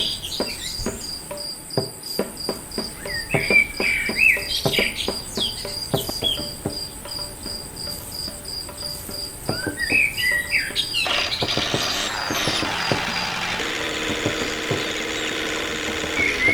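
Birds chirping over a steady high insect-like trill, with many small sharp clicks and taps. About eleven seconds in, a steady mechanical hum starts and carries on.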